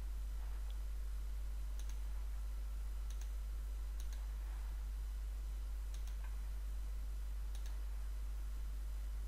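Computer mouse button clicking about five times, a second or two apart, each a quick double tick of press and release, as points of a lasso selection are placed. A steady low electrical hum runs underneath.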